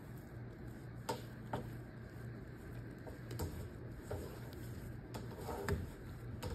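Hands folding and shaping a sticky sourdough loaf on a floured counter: a handful of faint, scattered clicks and soft taps over a low steady hum.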